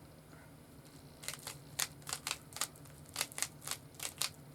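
Plastic Rubik's Cube layers being turned quickly: a run of about a dozen sharp clicks, three or four a second, starting about a second in.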